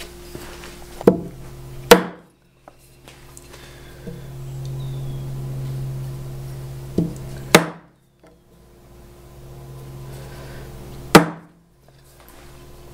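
A chisel struck into a wooden timber to cut layout marks, with five sharp knocks in three groups: a pair about a second in, another pair past the middle and a single one near the end. A low steady hum runs underneath through the second half.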